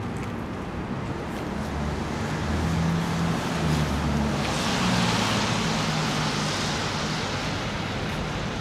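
Street traffic: a steady low engine rumble, with a car passing about halfway through, its tyre hiss swelling and fading over a couple of seconds.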